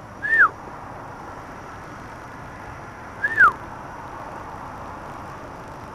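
An owl calling twice, about three seconds apart: each call is a short, sharp note that rises briefly and then drops.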